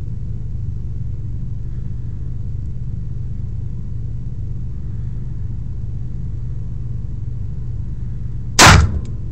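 A steady low hum, then one handgun shot near the end, very loud and sharp, with a short ring of reverberation in the enclosed range.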